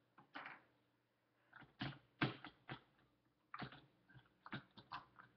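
Plastic LEGO parts clicking and knocking as a minifigure is pulled off a LEGO City fire boat: a series of quiet, irregular small clicks.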